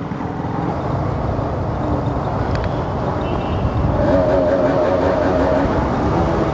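Motorcycle riding at speed, wind rushing over the helmet-mounted microphone with the engine running underneath. About four seconds in, a wavering pitched sound joins.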